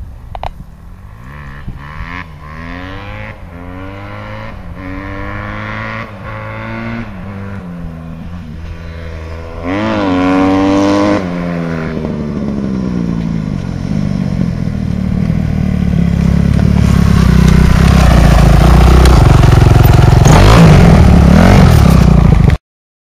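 Kawasaki KX250F four-stroke single-cylinder dirt bike accelerating through the gears, its pitch climbing and then dropping at each shift. It gets steadily louder as it comes closer, and the sound cuts off abruptly near the end.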